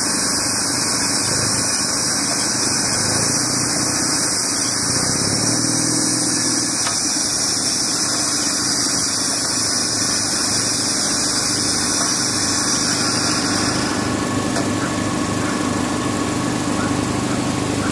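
Small engine running steadily, a low hum under a high hiss. The hiss cuts off about fourteen seconds in. This is typical of a lure-coursing machine's motor winding in the lure line.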